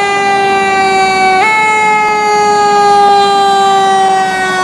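Fire engine on an emergency run sounding its siren: one loud, continuous pitched blare whose pitch slowly falls, with a sudden small step up about a second and a half in.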